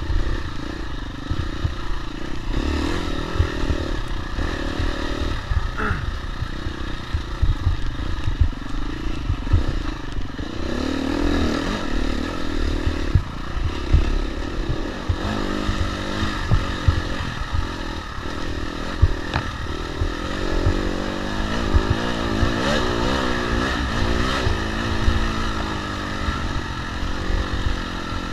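Dirt bike engine revving up and down as the bike is ridden hard over a rough, leaf-covered woods trail, with dense low knocks and buffeting from bumps and wind on the onboard camera's microphone.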